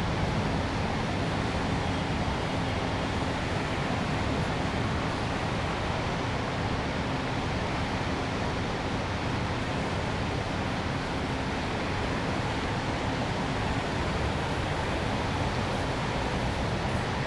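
Steady city ambience: a continuous wash of traffic and urban hum with a faint steady low tone, even throughout with no distinct events.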